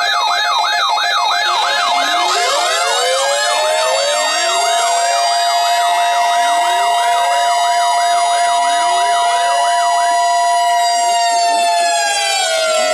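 A collection of NOAA weather alert radios alarming at once, set off by the Required Weekly Test. Their alarms layer fast siren-like whoops about two and a half times a second, slower rising sweeps and steady high tones. Near the end the tones glide down in pitch.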